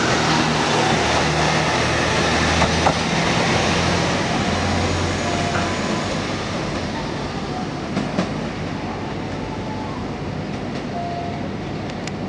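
KiHa E130-500 series diesel railcar running close by, its diesel engine humming steadily over the rumble of the wheels. About halfway through, the sound drops to a quieter, even rumble as another railcar approaches from farther off.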